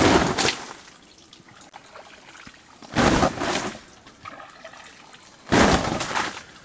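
Water thrown from a small tray splashing onto a nylon dome tent's flysheet, heard from inside the tent. There are three loud rushes of water on the fabric, about two and a half seconds apart.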